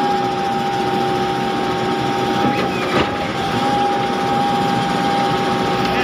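Schwing Stetter S36X truck-mounted concrete boom pump's engine running steadily, with a steady high whine over it and a faint click about three seconds in.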